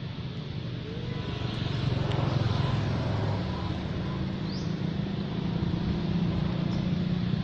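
A motor vehicle's engine running steadily, growing louder about two seconds in, with a faint short high chirp partway through.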